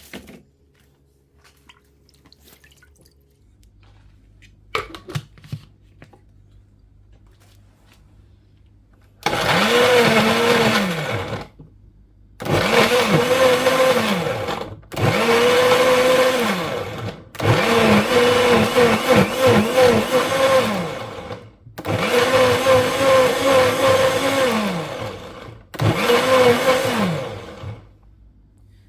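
Blender pulsed six times in a row after a quiet start, each run about two seconds long, the motor rising in pitch as it spins up and falling as it winds down. It is rough-blending fresh herbs with onion, ginger and garlic.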